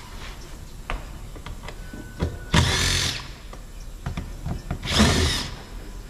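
Cordless power driver with a 7 mm socket backing out door trim panel screws: two short runs, about two and a half seconds in and again about five seconds in, each with the motor pitch rising and then falling. A few light clicks come between them.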